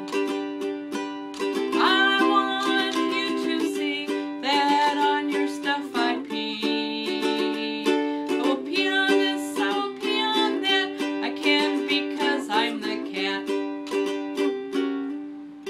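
Ukulele strummed in a steady rhythm, playing an instrumental break of a song with no singing.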